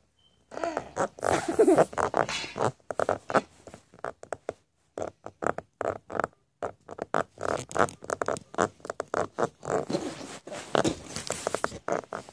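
A teething one-year-old gnawing and sucking on the cap of a plastic water bottle, making short vocal noises and wet mouth sounds. A longer stretch of pitched voice comes about a second in, then a quick run of short sounds through the rest.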